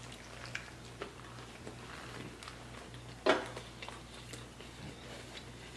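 Two people biting into and chewing crispy fried chicken sandwiches: soft, faint mouth and crunch sounds, with one louder short sound about three seconds in. A low steady hum sits underneath.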